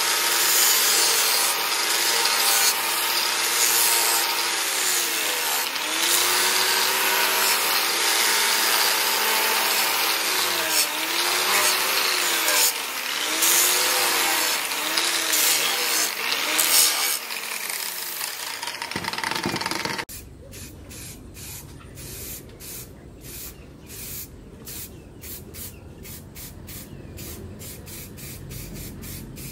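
Electric angle grinder grinding a steel knife blade, a loud rasping grind whose motor pitch sags and recovers again and again as the disc is pressed into the steel. It stops abruptly about two-thirds of the way through, and a much quieter run of short hisses from an aerosol spray can follows.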